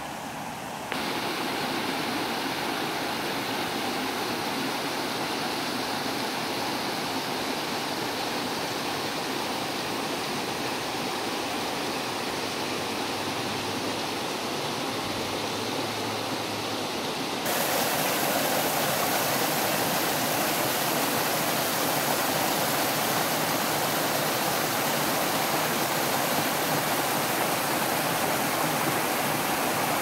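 A small waterfall stream tumbling over rocks: a steady rush of water that steps up louder and brighter about a second in and again a little past halfway.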